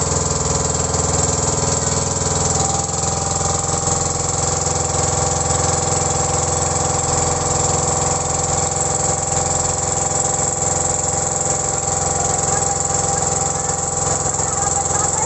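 The engine of a motorized outrigger boat (bangka) running steadily under way, an even drone at a constant pitch.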